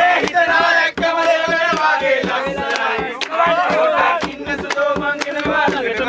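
A group of young men singing and chanting together, loud, with steady hand clapping at about two beats a second.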